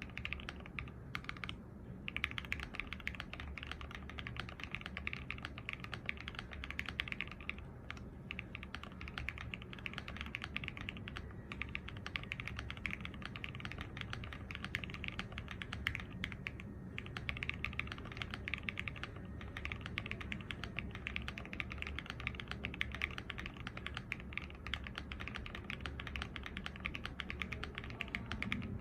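Fast continuous typing on a gasket-mounted MW65-Q mechanical keyboard with lubed Gateron Pure Sky linear switches on an aluminium flex-cut plate, a dense stream of key clacks with a few brief pauses.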